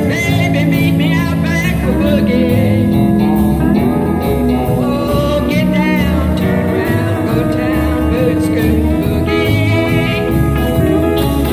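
Live country band playing: pedal steel guitar, electric guitar and acoustic guitar over a bass line, with gliding steel-guitar notes.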